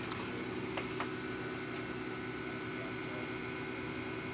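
Steady outdoor background noise: a low hum under a high, even hiss, with two light knocks about a second in.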